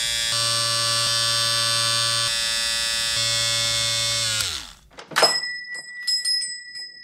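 Electric hair clippers buzzing steadily, then winding down and switching off about four and a half seconds in. A sharp click follows, the loudest moment, then a few lighter clicks under a thin high ringing tone.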